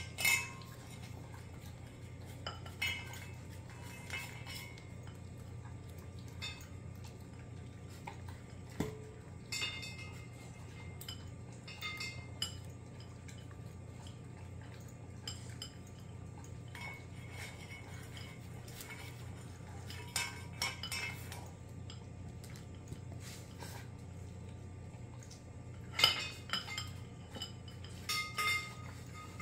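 Small terrier-Chihuahua mix dog eating from a bowl: scattered clinks and taps as its metal collar and leash hardware and its muzzle knock against the bowl, the loudest near the end. A steady low hum runs underneath.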